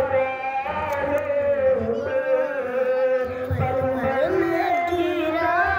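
A boy's voice chanting a melodic recitation, holding long notes that waver and slide in pitch.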